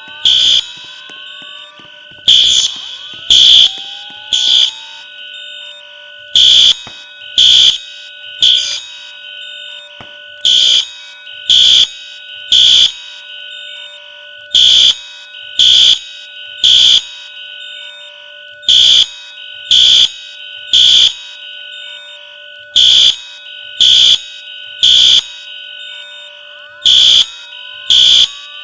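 Fire alarm sounding in the temporal-three evacuation pattern: three loud, high-pitched blasts about a second apart, then a pause, the group repeating about every four seconds.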